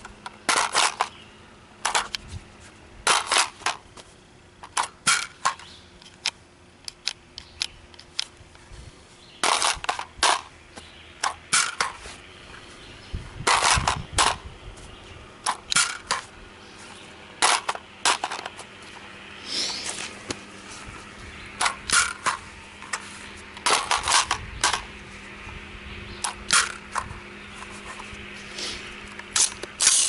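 Smith & Wesson M&P15 AR-15 rifle being handled: a long, irregular string of sharp metallic clicks and clacks from its controls and action, some coming in quick pairs or clusters.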